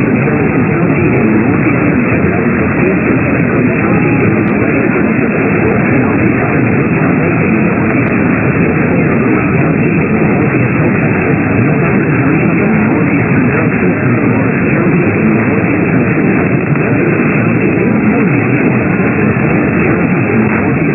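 Loud, steady radio static hiss from a receiver with no clear signal, heard through a narrow radio audio band.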